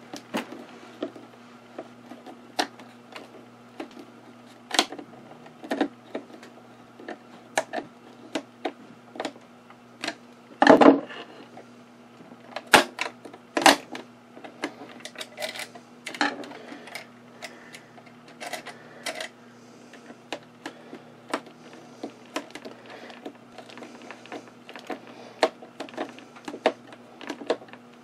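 Irregular small clicks and light knocks of a hand screwdriver driving screws into a metal suitcase latch and of tools being handled, with one louder knock about eleven seconds in, over a steady low hum.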